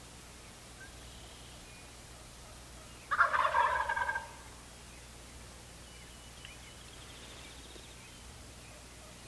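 Wild turkey tom gobbling once, about three seconds in: a loud, rapid rattling call lasting about a second.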